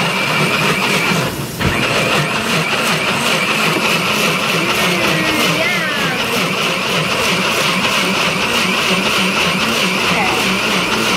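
Personal bullet-style blender running continuously, its motor whirring as it blends pumpkin guts and milk. There is a brief break about a second and a half in.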